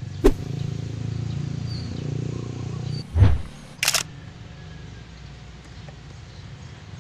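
Handling noise from a head cover and full-face motorcycle helmet being pulled on and adjusted. There is a steady low rubbing rumble, with a sharp click just after the start, a heavy thud about three seconds in and a crisp click just before four seconds.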